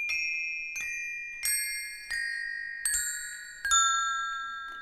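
A row of iron bars, old stonemason's chisels, struck one at a time with a small metal rod, ringing like small bells. Six strikes, evenly paced, each a step lower than the one before, with every note ringing on under the next: a descending scale in the Bergamasque style, standing in for a tower's bells.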